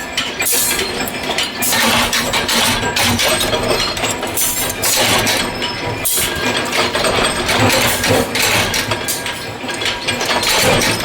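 Metal parts clinking and clanking, with many irregular sharp strikes close together.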